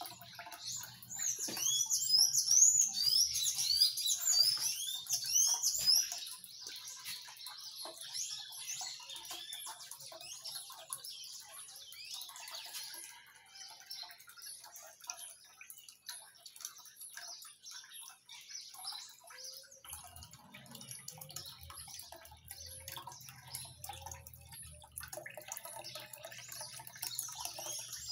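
Water trickling from a small bucket into the basin of a handmade miniature wishing-well fountain, with a bird chirping loudly over it for the first several seconds. A low hum comes in about two-thirds of the way through.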